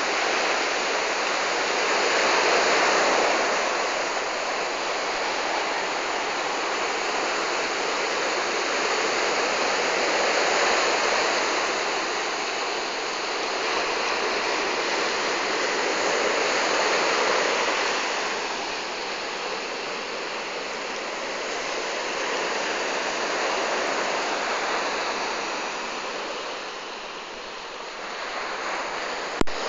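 Sea surf breaking on a sandy beach: a steady rush that swells and eases every several seconds. A brief click near the end.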